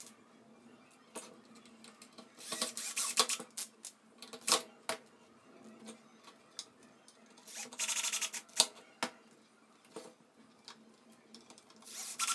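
A cordless drill driving small screws through rubber feet into a wooden base in three short, clicky bursts, with single sharp clicks of small screws and parts being handled in between.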